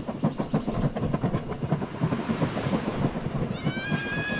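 Water sloshing and splashing in irregular, rapid knocks as muddy toy vehicles are washed by hand in a tub of water. A steady high tone comes in near the end.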